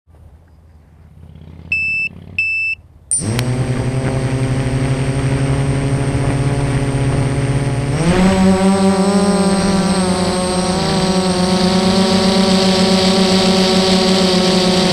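Two short electronic beeps, then an FPV quadcopter's brushless motors and propellers spin up to a steady idle whine. About five seconds later the whine steps up in pitch and loudness as the throttle comes up for takeoff, then holds steady.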